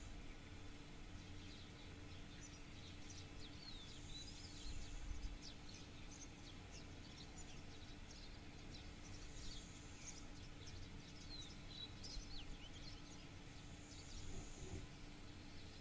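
Faint birdsong: many small birds chirping in quick sweeping notes over a steady low hum, with a short high buzzy call coming back about every five seconds.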